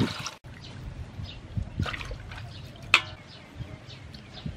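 Water pouring briefly over raw chicken wings in an aluminium basin, then splashing and sloshing as the wings are washed by hand in the water, with a sharp knock about three seconds in.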